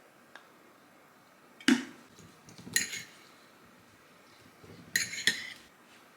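Kitchen dishes and utensils clinking: a dull knock, then a ringing clink, and two quick ringing clinks near the end.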